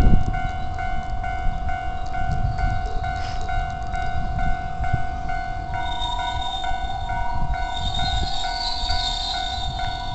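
Japanese railway level-crossing warning bell ringing over and over, about two dings a second, over the low rumble of trains. About six seconds in, a second, higher ringing tone joins it.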